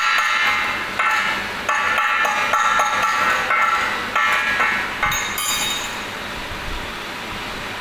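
Metal struck repeatedly, in irregular clusters of sharp blows that ring on, like a hammer on steel plate. The blows stop about five seconds in, leaving a steady hiss.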